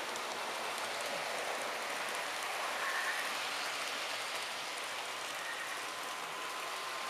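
HO-scale model trains running on the layout: a steady, even whir of small metal wheels on rail and electric motors, with a faint steady whine coming in near the end.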